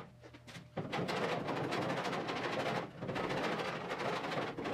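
Pneumatic needle scaler hammering old tar undercoating off the steel underside of a Triumph TR6 body: a rapid, noisy rattle that starts about a second in, breaks off briefly near three seconds and stops near the end.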